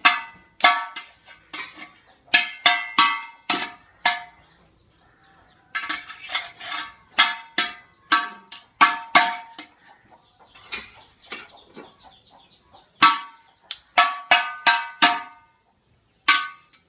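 A metal object struck over and over at an uneven pace, each hit ringing briefly like a bell, in quick clusters with short pauses between.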